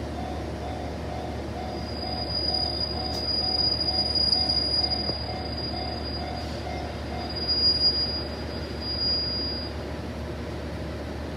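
Steel wheels of an arriving diesel railcar squealing: a single high-pitched squeal starts about two seconds in, swells twice and dies away near ten seconds. A low steady engine hum and an evenly repeating ding, about three a second, sit underneath.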